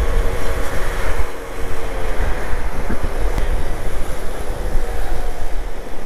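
Peugeot Jetforce scooter riding at low speed through town: the engine runs with a steady tone that fades after about a second, under heavy wind rumble on the microphone.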